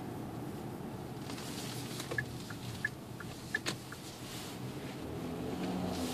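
Inside the cabin of a 2013 Hyundai Santa Fe 2.0T (turbocharged four-cylinder) on the move: a steady engine and road hum. A few light clicks and ticks come in the middle, and the engine note swells slightly near the end.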